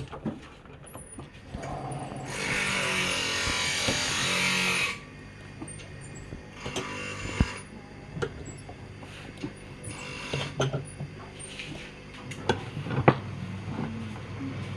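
Woodworking noise: a steady rasping burst of about two and a half seconds, a second shorter burst, and scattered sharp clicks and knocks of tools.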